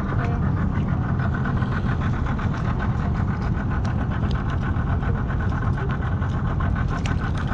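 Boat engine idling steadily, with a fast, even pulse.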